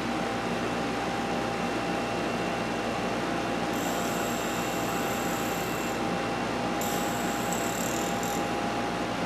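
Watchmaker's lathe running steadily with a small grinding wheel on its spindle, grinding the top of a worn brass clock-hammer tail flat. A high whine comes in twice, for about two seconds each.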